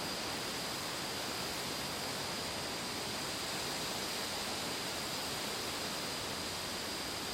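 Steady, unbroken rushing noise with a faint high hiss on top; no separate events.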